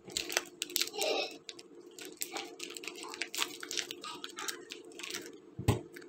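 Plastic packet of a block of feta cheese torn open and crinkled by hand, a quick run of crackles and rustles, with a soft thud near the end as the block is set down on a wooden chopping board.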